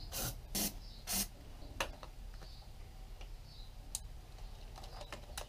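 Hands handling parts on a motorcycle, around the carburettor and wiring: a few short scrapes and rubs in the first second or so, then sparse clicks, a sharper one about two seconds in and another about four seconds in.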